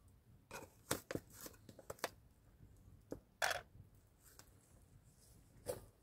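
Scattered light knocks and clicks, with a short rustling noise about three and a half seconds in and another near the end.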